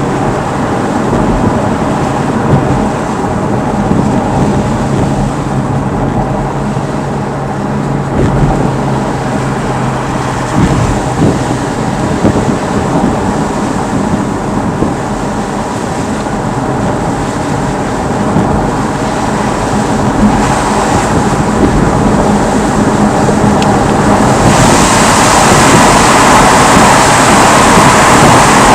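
Car driving, heard from inside the cabin: steady engine hum and road noise. About 24 seconds in, a louder steady hiss comes in and stays.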